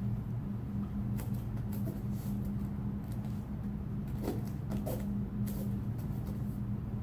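A child's kick smacking against a hand-held breaking board about four seconds in, the board not breaking, among a few softer taps and scuffs of bare feet on the mat. A steady low hum runs underneath throughout.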